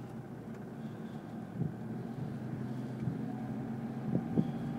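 Car engine running steadily with road noise while driving, heard from inside the cabin.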